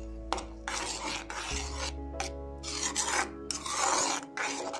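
Steel spoon scraping the bottom of a pan while stirring thick rice kheer (paal payasam), in repeated rasping strokes.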